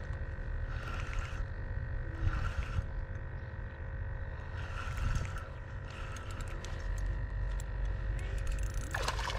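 A spinning reel being cranked in short whirring spurts as a small trout is reeled in on a light rod, over a steady low rumble. Clicks and rustling build near the end as the fish nears the bank.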